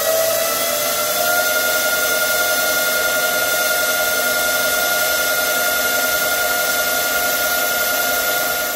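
CNC lathe spindle running while turning a metal part, with a steady whine that rises in pitch during the first second, then holds level. The whine sits over a hiss of cutting and machine noise.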